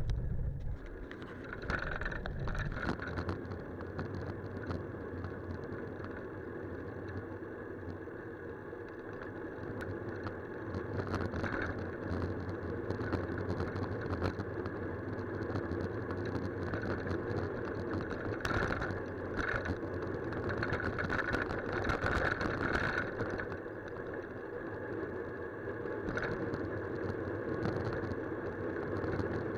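Steady rushing road and riding noise from a bicycle on a wet tarmac road, picked up by a handlebar camera, with scattered sharp knocks and rattles.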